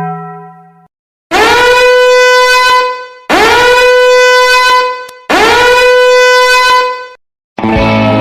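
A horn-like blast sound effect played three times in a row. Each blast scoops up in pitch at the start, then holds one steady bright note for about two seconds before cutting off.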